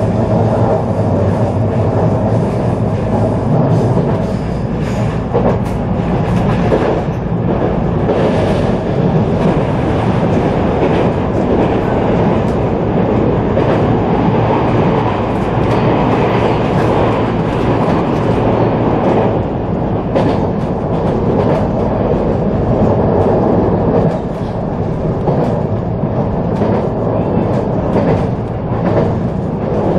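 Running noise of a JR San'in Main Line local train heard from inside the carriage: a steady rumble of the wheels on the rails, with frequent irregular clicks and clacks from the track.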